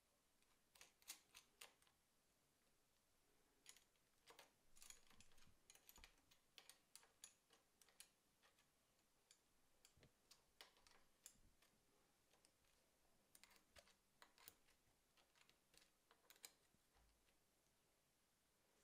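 Faint, irregular clicks and ticks of small metal hardware being handled: a phone mount's handlebar clamp, bolts and nut knocking and clicking against one another as they are fitted.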